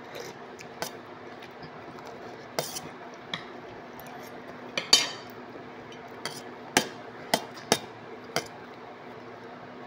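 Metal spoon clinking and tapping against a plate or bowl while eating, about ten short, irregular clinks over a faint steady hum.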